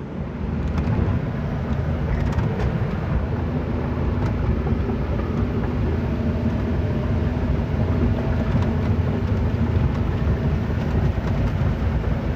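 An engine running steadily, a continuous low drone.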